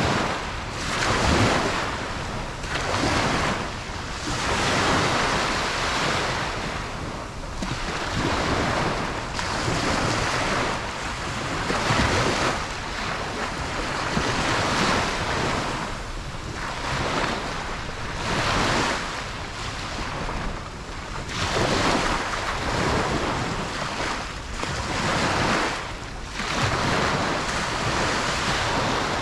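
Ocean waves breaking and washing on a beach, the surf swelling and falling back every few seconds, with wind on the microphone.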